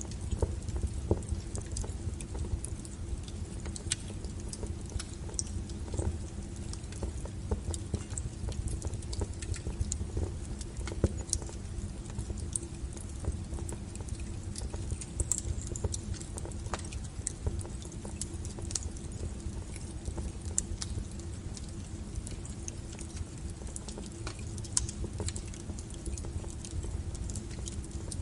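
Wood fire burning, with irregular sharp crackles and pops of burning firewood over a steady low rumble.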